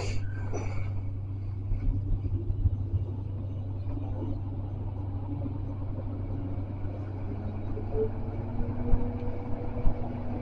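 Tram cab interior at a standstill: a steady low electrical hum, with a brief clatter right at the start as the doors close. From about eight seconds in, a faint whine slowly rises in pitch as the traction motors start the tram moving.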